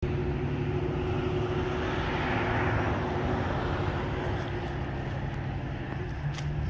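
An engine passing by outdoors: a steady low hum under a rushing noise that swells around two to three seconds in and then fades.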